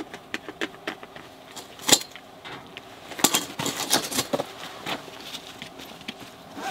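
Camping gear being handled: a run of irregular small clicks, taps and knocks, the loudest knock about two seconds in.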